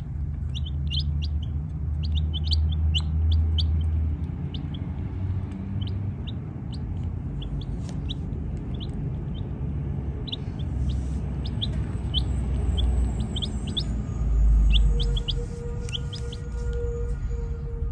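Baby chicks peeping: many short, high cheeps scattered throughout, over a low rumble that swells twice, loudest near the middle-end. A faint steady hum joins near the end.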